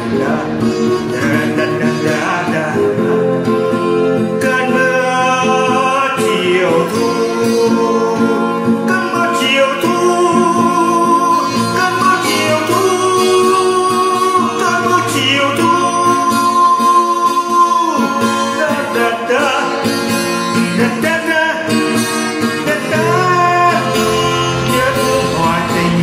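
A song: a voice singing a slow melody over plucked guitar.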